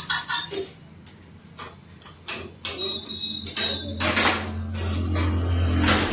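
Irregular metal clinks and knocks of tools and parts being handled on a motorcycle's rear wheel, chain and sprocket, over a steady low hum that starts about a second in. Noise grows louder in the last two seconds.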